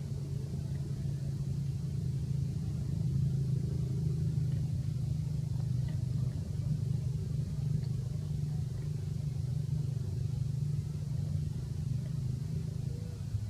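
Steady low engine hum running without a break.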